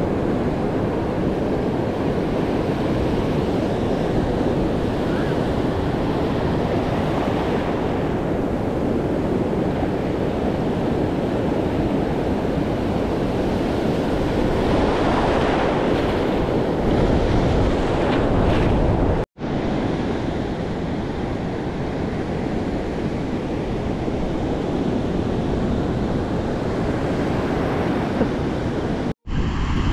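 Ocean surf breaking and washing in a steady rush, with wind buffeting the microphone. The sound drops out for an instant twice, about two-thirds of the way through and just before the end.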